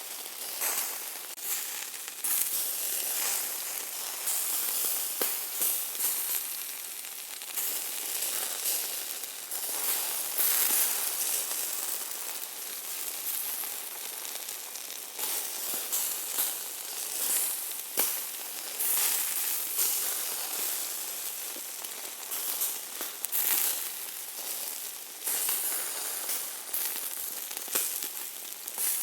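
Hamburger meat sizzling: a steady high hiss of frying fat, dotted with many sharp crackling pops, swelling louder and easing back every few seconds.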